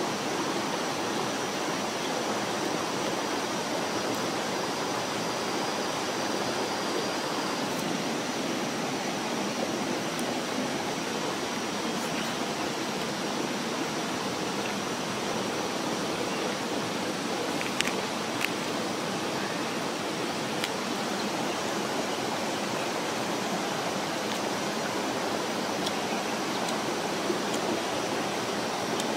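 Steady rush of a flowing stream, with a few faint clicks about two-thirds of the way through.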